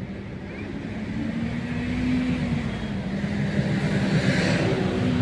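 A motor vehicle's engine running close by: a steady low hum under a rushing noise that grows gradually louder.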